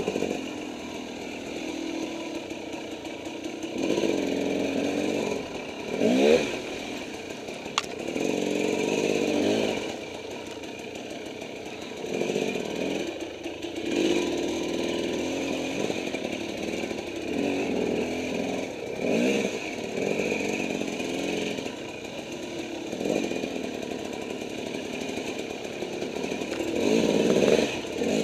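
Dirt bike engine being ridden under constantly changing throttle, its revs rising and falling in repeated surges. A sharp quick rev comes about six seconds in, and another near the end.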